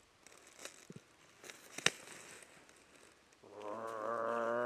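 A sharp click about two seconds in, then a long, steady bleat-like call begins near the end and holds one pitch.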